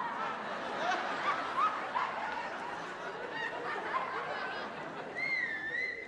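Audience laughing and chuckling in a large hall, a dense mass of many voices. Near the end a wavering high whistle sounds for about a second.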